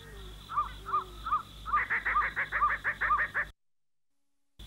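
Bird-like animal calls of a night-time jungle soundtrack: a run of quick calls repeated about five times a second, overlapped by a series of short arched calls. They stop abruptly about three and a half seconds in, leaving a second of silence.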